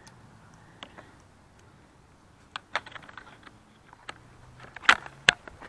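Plastic clicks and small rattles as wiring connectors are pushed into a Dodge Ram seat's control switch and heated-seat module, with two sharp snaps close together near the end.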